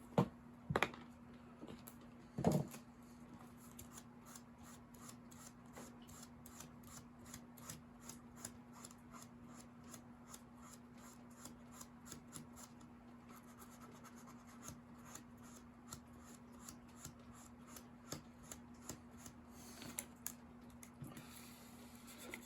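Small spot on a rosewood piano molding being sanded down by hand: faint, quick scratching strokes, several a second, over a steady low hum.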